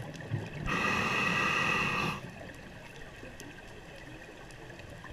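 A scuba diver breathing through a regulator underwater: about a second in, an inhale lasting about a second and a half, a hissing draw with a few steady whistling tones. It is followed by quieter low rumbling water noise.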